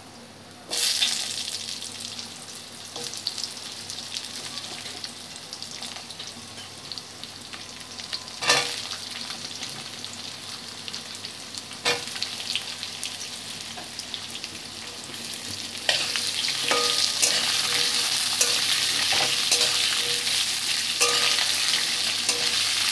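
Potato and pumpkin pieces sizzling in hot mustard oil in a steel wok. The sizzle starts up less than a second in, with a few sharp knocks of the steel spatula against the pan. It grows louder and denser about two-thirds of the way through as the vegetables are stirred and scraped.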